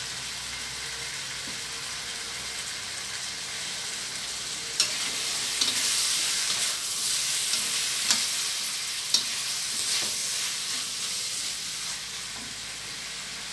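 Bamboo shoots and minced pork sizzling in a stainless steel wok. From about five seconds in, a metal spatula stirs them, knocking and scraping against the wok a handful of times, and the sizzle gets louder while it is stirred.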